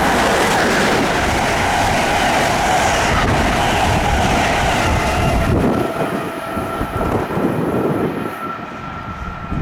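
Amtrak Northeast Regional passenger train passing on the tracks, a loud, steady rush of wheels on rail that starts to fade about six seconds in as it moves away.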